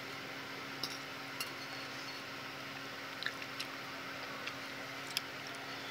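A metal fork clicking and scraping lightly on a ceramic dinner plate while food is picked up: a handful of small, scattered clicks over a steady faint hiss and hum.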